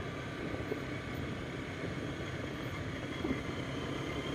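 Motorbike engine running steadily while riding along a paved road, with wind and tyre noise.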